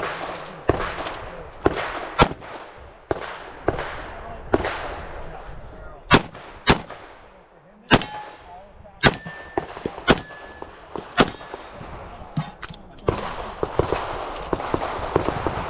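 Revolver fired in a string of shots, roughly half a second to a second apart, with a lull about seven seconds in. A few shots near the middle are followed by a brief metallic ring, as of steel targets being hit.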